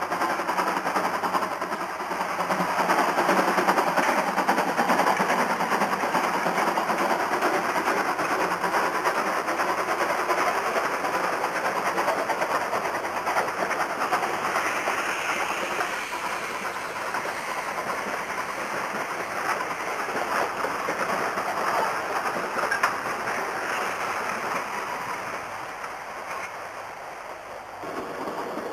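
Narrow-gauge (750 mm) steam locomotive working a train, its exhaust beats and the running gear and coaches rattling. It is loudest a few seconds in and grows gradually quieter toward the end.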